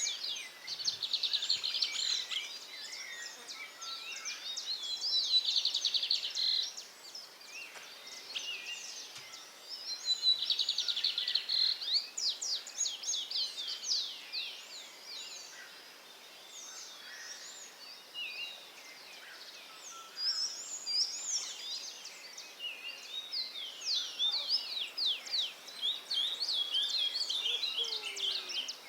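Several songbirds singing at once: a busy chorus of chirps, whistled notes and fast trills, with rapid trills coming in short bouts about every four to five seconds in the first half.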